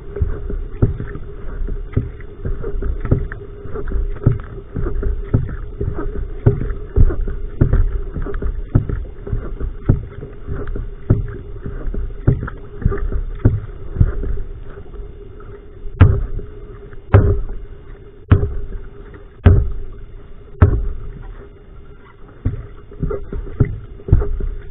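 Va'a (outrigger canoe) paddling: a steady rhythm of paddle strokes, each a sharp knock and splash as the blade enters the water. The strokes come about one and a half a second at first, then slow to about one a second and grow louder past the middle.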